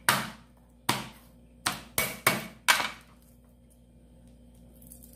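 A meat cleaver striking garlic cloves on a cutting board: about six sharp knocks in the first three seconds, then it stops.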